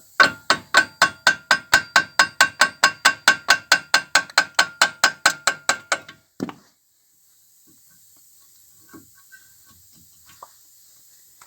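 Hammer striking metal in an even run of ringing blows, about four a second for some six seconds, followed by one last duller knock.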